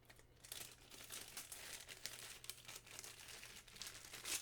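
Faint irregular crackling and clicking of plastic as the over-tightened cap of a pressurized brake bleeder bottle is forced loose with its wrench, with a sharper crack near the end.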